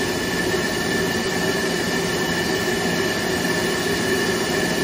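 Steady drone of a running machine, with a constant high whine over it.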